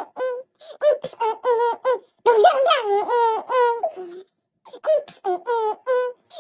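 Background novelty track of a high-pitched voice chanting short repeated 'dang' syllables in a quick, even rhythm. About two seconds in, this breaks into a stretch of high-pitched giggling laughter, and the chant returns near the end.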